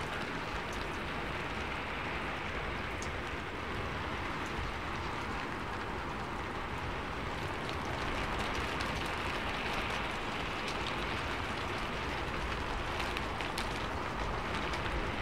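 Steady sound of rainfall: an even hiss with scattered small drop ticks.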